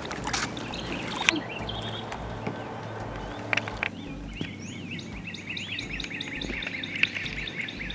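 A songbird singing a fast run of wavering, up-and-down whistled notes through the second half. There are a few sharp knocks and clicks in the first second or so.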